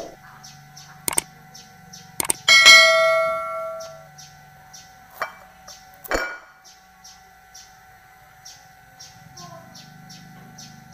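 Kitchen knife cutting a bitter melon over a glass bowl: a few sharp knocks and clinks of the blade meeting the glass. One clink, a few seconds in, rings on like a struck bell for over a second. Faint high chirping repeats about two or three times a second behind it.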